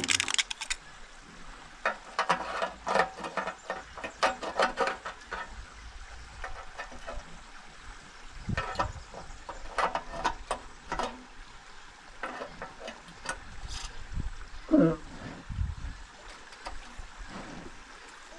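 Scattered clicks and knocks from hands working on a small petrol water pump whose engine is not running. A brief low call sounds once, about fifteen seconds in.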